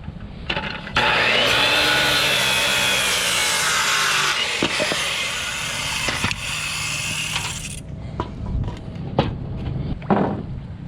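Electric power saw cutting through a wooden board, a length of blocking for the dock. The motor's whine drops under load and recovers through a cut of about seven seconds, starting about a second in and stopping sharply, followed by a few light knocks of wood being handled.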